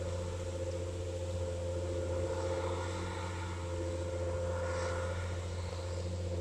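John Deere 7830 tractor's six-cylinder diesel engine running steadily under load while it pulls a five-shank Bisson ripper through the soil.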